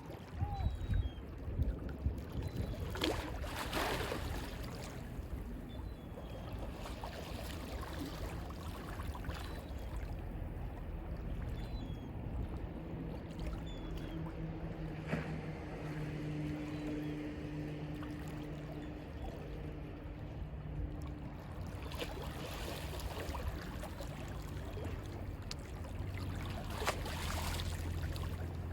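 Mediterranean sea waves washing in over a constant low rumble, with a surge every several seconds. A few faint, short bird chirps sound now and then.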